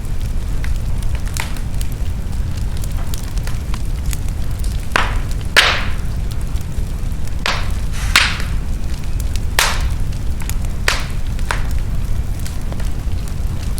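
Wood fire burning in a fireplace: a steady low roar of flame with small crackles and several louder pops and snaps of burning logs, the loudest about five and a half seconds in.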